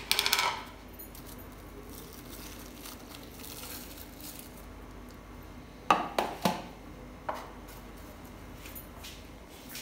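Plastic food containers and lids clattering and knocking on a stone kitchen counter: a short rattle at the start, then a few sharp knocks about six seconds in and one more a second later. A faint steady hum lies underneath.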